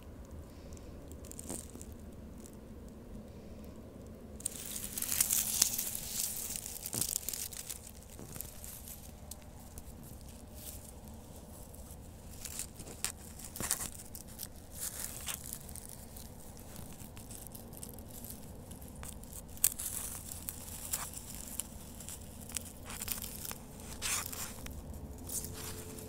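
Dry pine needles and twigs crackling and rustling in irregular bursts with sharp snaps, the loudest about five seconds in.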